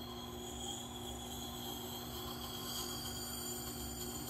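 Tormek T8 wet grinder running with a steady motor hum, as a hatchet head held in its axe jig grinds against the turning wet stone.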